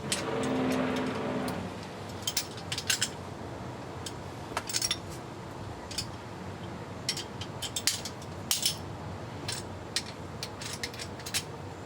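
Metal hand tools clicking and clinking, in short uneven clusters of sharp clicks: socket, extension and torque wrench being handled and worked on the transmission pan bolts. A brief pitched hum is heard in the first second and a half.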